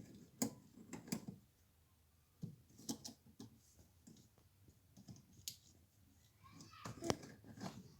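Scattered light clicks and knocks, about eight in all at irregular intervals, from the parts of a twin-tub washing machine's spin dryer being handled.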